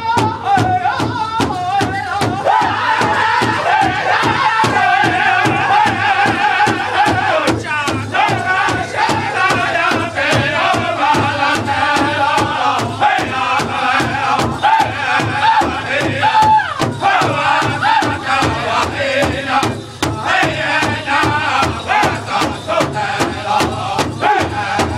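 Powwow drum group of men singing a veteran song in high, wavering voices together, over a steady beat struck on a large shared drum.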